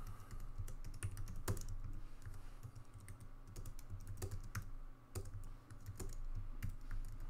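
Typing on a computer keyboard: irregular key clicks over a low steady hum.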